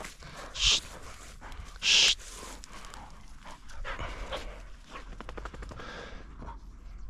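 Labrador retriever panting, with two loud, short breathy bursts about a second apart near the start, over light crackling.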